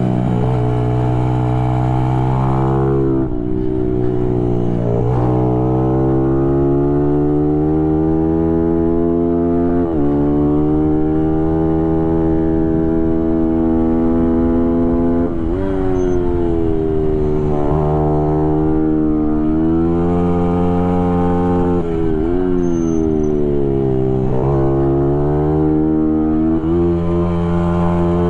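Small race motorcycle engine under full throttle, heard from on board. The pitch climbs steadily and drops sharply at each gear change or braking point, several times over the lap.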